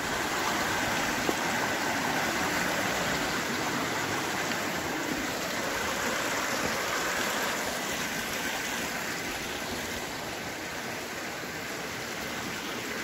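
A small mountain creek running and splashing over rocks in a steady rush of water, easing a little near the end.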